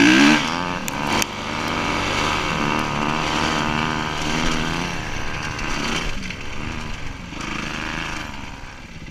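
Dirt bike engine running while being ridden, revving hardest right at the start, then holding a fairly steady pitch and easing off toward the end.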